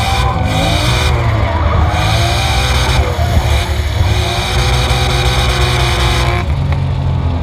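Drift car engine running at high revs, rising and falling in pitch through a tandem drift, over the hiss of sliding, squealing tyres. The tyre noise cuts off suddenly about six and a half seconds in as the car stops sliding.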